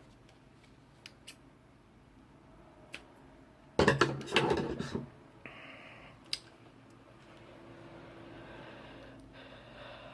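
Small cutting tool snipping away a loose piece from the end of a Cat5 cable that is in the way. There are a few faint clicks, then a cluster of louder snips and clatter about four seconds in, a brief hiss, and one more click.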